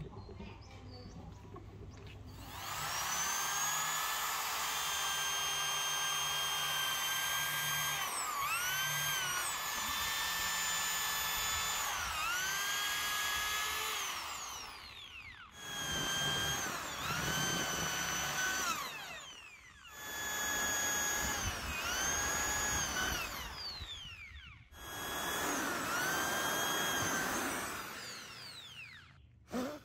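Corded electric drill boring out the old wooden handle left in a Pulaski axe head's eye. It starts about two and a half seconds in and runs for a long stretch, then stops and restarts three times in shorter runs. The motor's whine dips in pitch each time the bit bites into the wood, then recovers.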